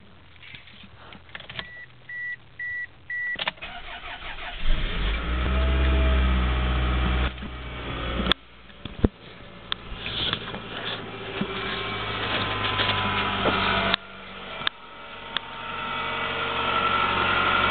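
Four short chime beeps, then a 2000 Toyota's starter cranks and the engine catches on a cold start, running loudly at first before settling into a steady idle. Two sharp clicks come about eight and nine seconds in.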